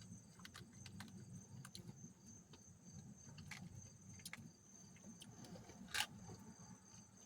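Near silence with crickets trilling faintly and steadily in the background, and scattered soft clicks and light taps, one a little louder about six seconds in.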